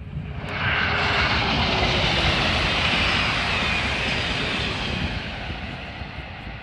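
TGV high-speed train passing at speed: a loud rushing noise that swells about half a second in, holds, then fades as the train moves away, with a faint falling whine. Wind buffets the microphone throughout.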